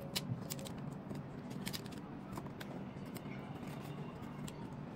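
Clear plastic protective film being peeled off a phone's adhesive gasket: faint crinkling with scattered small clicks and ticks.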